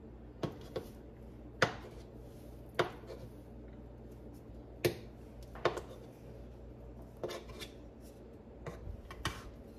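Kitchen utensil knocking and clicking against a pan or board in scattered, irregular strikes, about ten of them, over a steady low hum.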